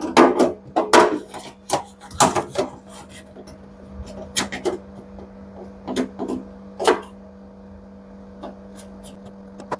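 Irregular clicks and knocks of screws and a hand tool being handled while a washing machine's door switch is screwed in place, busiest in the first few seconds and then sparse, over a steady low hum.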